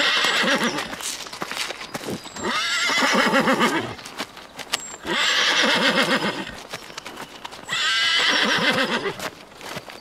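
Horse whinnying four times, each call about a second long with a shaking, wavering pitch, with hoof clops between the calls.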